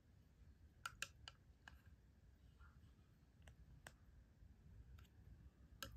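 Near silence with a few faint, scattered clicks: a small plastic spoon tapping against a Baby Alive doll's hard plastic mouth as the doll is fed.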